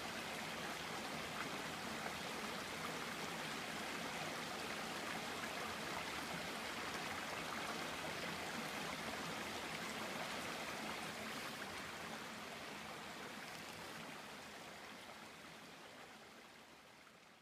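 Shallow creek water flowing steadily over its stony bed, an even rush with a light trickle, which fades out gradually over the last five seconds or so.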